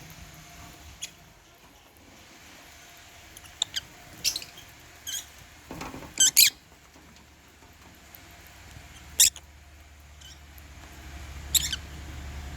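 African lovebirds giving short, sharp, high-pitched chirps, scattered singly and in pairs, the loudest a quick double chirp about six seconds in. A low rumble builds near the end.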